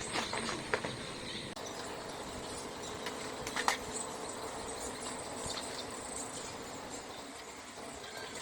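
Outdoor background with a steady high insect drone and a few small clicks or knocks, the clearest about three and a half seconds in.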